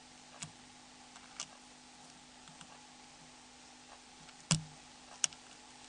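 Four small, sharp clicks of small mobile-phone parts being handled with hand tools over a faint steady hum. The loudest click comes about four and a half seconds in, with a brief dull knock.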